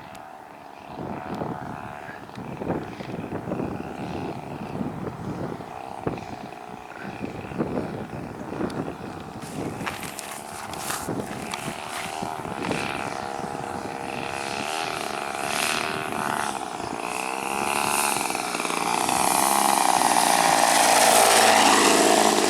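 Gasoline two-stroke engine of a large RC model airplane running with its propeller while coming in to land, growing steadily louder over the last several seconds as it nears. Wind gusts buffet the microphone throughout.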